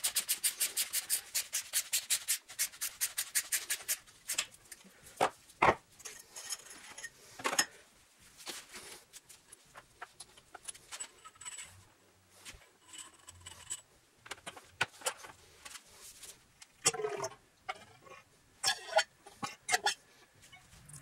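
A hand ratchet clicking quickly and evenly for about four seconds, then scattered clinks and knocks of metal motorcycle fork parts being handled in a plastic drain pan. Near the end come a few ringing metallic scrapes as a fork tube and spring are moved.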